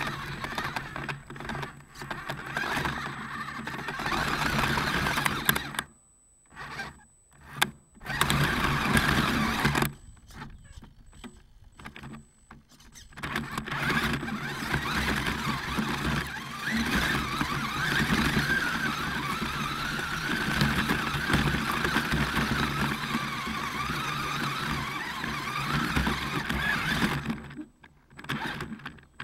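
Brushed electric motor and geared drivetrain of a radio-controlled rock crawler running, heard close up from a camera on board the truck. It stops several times, falling to near silence for a couple of seconds about six seconds in, for about three seconds from ten seconds in, and briefly near the end.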